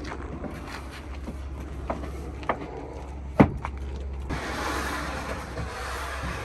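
Plywood boards being loaded into the back of a van: a few knocks of wood on wood, the loudest about three and a half seconds in, then a long scraping rush as a board slides across the van's load floor.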